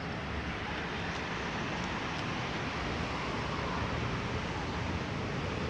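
Wind buffeting a phone's microphone in an uneven low rumble, over a steady wash of street traffic noise.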